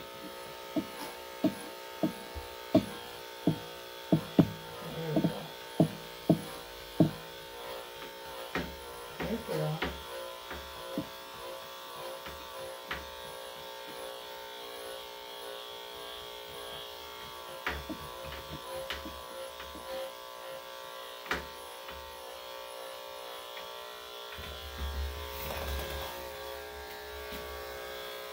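Andis UltraEdge electric dog clippers with a #5 blade running steadily while shaving a Cocker Spaniel's thick coat. Sharp clicks come about one or two a second through the first ten seconds, then only now and then.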